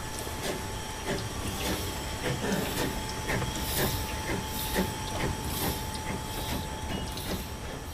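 N-scale model steam train (Fleischmann BR 78 with passenger coaches) rolling past close by. Its wheels click over the rail joints about twice a second, with a faint steady whine, and regular hissing puffs come about once a second.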